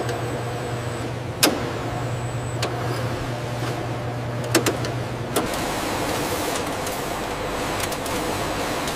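Factory machinery: a steady electric motor hum from the tensile testing machine, with a few sharp clicks. About five seconds in it gives way to the broader, noisier whir of a packaging conveyor line.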